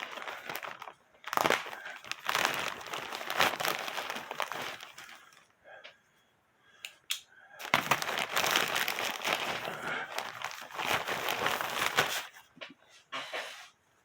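Packaging crinkling and rustling as newly delivered shirts are handled and unwrapped, in two long stretches with a short pause between.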